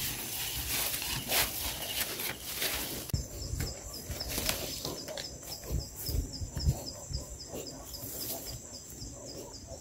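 Outdoor field sound: rustling and handling noise for about three seconds. Then an insect chirps steadily, about three short chirps a second, over scattered low thuds of movement.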